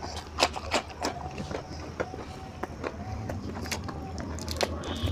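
Close-miked eating sounds: sharp crunching bites and wet chewing and lip smacks, with many short clicks, over a steady low hum.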